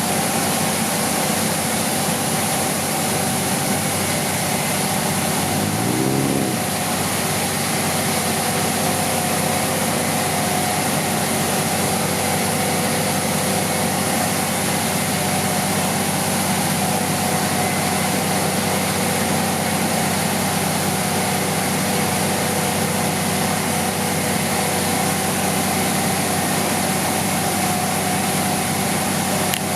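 Vehicle engine idling steadily, with a short rising whine about six seconds in.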